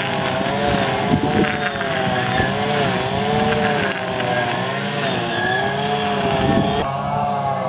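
Petrol brush cutter running while cutting long grass, its engine pitch wavering up and down as the throttle and load change.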